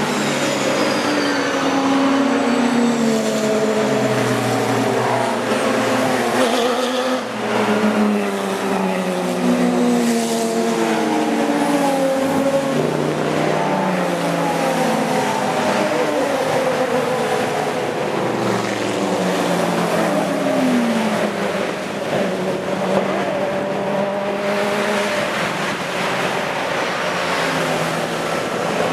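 A pack of GT race cars passing one after another under hard acceleration, several engines overlapping. Their engine notes rise and then drop sharply, again and again.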